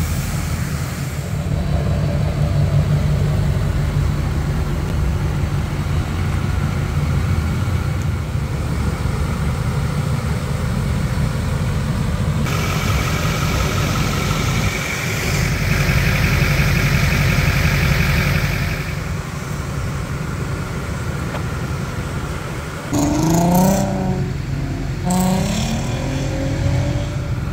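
Pickup truck engine running steadily, with two short rising revs near the end. A steady hiss joins for several seconds in the middle.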